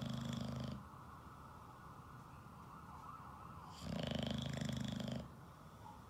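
English bulldog snoring loudly in its sleep. One snore dies away just under a second in, and another snore starts about four seconds in and lasts just over a second.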